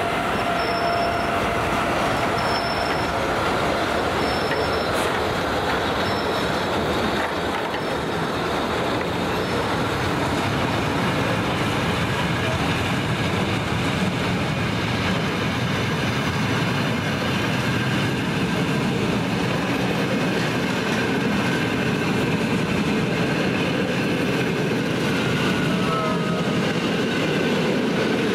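Historic train hauled by an E656 electric locomotive, with vintage FS passenger coaches, rolling slowly past at close range: a steady rumble of wheels on rail. The locomotive hums steadily in the first seconds, and there are short wheel squeals near the end.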